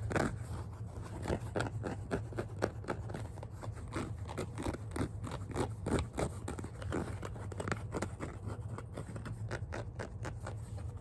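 Scratching on a hard cap: short, irregular scratch strokes, a few a second, repeated throughout.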